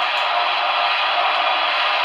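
Steady radio static hiss, even and unbroken.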